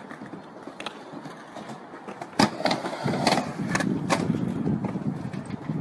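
Skateboard wheels rolling on a halfpipe ramp, a low rumble that grows louder about halfway through. There is a sharp clack of the board about two and a half seconds in and a few lighter knocks.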